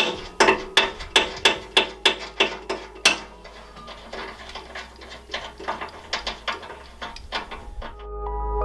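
Hand ratchet wrench clicking in quick, even strokes, about four a second, as a 9/16 bolt holding a snowblower skid shoe is backed off; after about three seconds the clicks come slower and fainter. Music fades in near the end.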